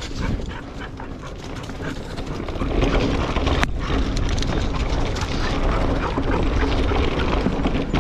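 Mountain bike rolling along a dry-leaf forest trail: tyres crackling over the leaves and the bike rattling, with wind rumbling on the camera microphone. The rumble grows louder about two and a half seconds in as the bike picks up speed, and there is a sharp click a second later.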